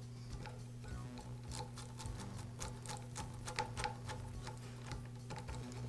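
Small metallic clicks and ticks of a screwdriver tip and crimped wire terminals against a new DeWALT chop saw trigger switch as the wires are pushed onto it, bunched in the middle seconds, over a low steady hum.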